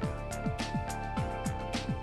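Background music with a steady electronic beat: deep kick drums falling in pitch, about four a second, with bright cymbal hits over held synth tones.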